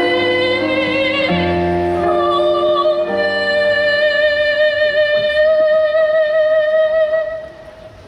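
A high-school choir singing chords in several parts, then holding one long final note that stops sharply about seven seconds in.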